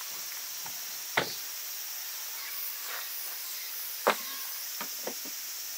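Steady high-pitched drone of summer insects, with a few sharp knocks or clicks: a strong one about a second in, the loudest about four seconds in, and three smaller ones near the end.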